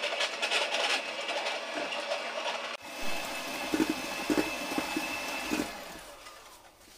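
Electric hand mixer running at speed, its beaters whipping eggs and sugar in a stainless steel bowl, with a steady high motor whine and the beaters knocking against the side of the bowl. The motor winds down and stops near the end.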